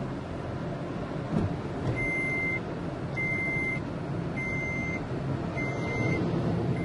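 Vehicle engine and road noise from inside a moving vehicle, with a brief thump about a second and a half in. From about two seconds in, a high electronic beeper sounds in even beeps of about half a second, a little over a second apart: four beeps, with a fifth starting at the very end.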